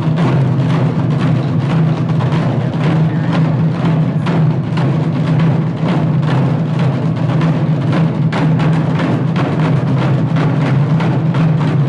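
An ensemble of Korean barrel drums beaten with sticks in a fast, dense, continuous rhythm, the strokes overlapping into a steady loud roll.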